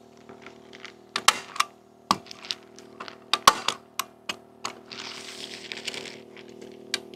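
House wrap being handled on a ladder: a series of sharp clicks and knocks, and a rustle of the plastic sheet lasting about a second and a half a little past the middle.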